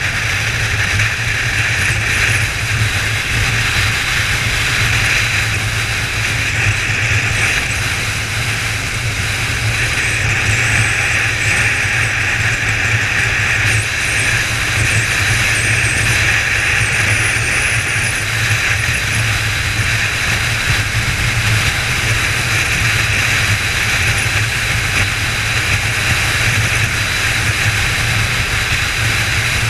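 Kawasaki ZZR 1400 inline-four running at a steady cruise, heard under a constant rush of riding wind over the camera's microphone, with no revving or gear changes.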